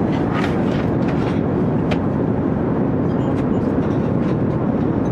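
Steady airliner cabin drone, engine and airflow noise heard from inside the cabin, with a few faint clicks and clinks on top.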